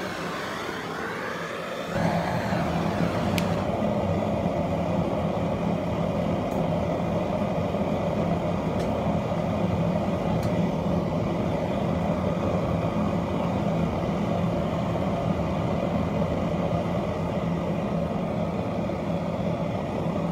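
Homemade propane forge burner: gas rushing as it is lit with a hand torch, then catching about two seconds in and running with a steady, louder jet-like rush.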